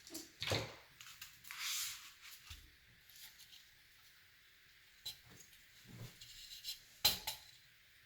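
Scattered clicks and light knocks of small metal cooler-mounting parts and screws being handled and fitted, with a short rustle about two seconds in and a sharper knock near the end.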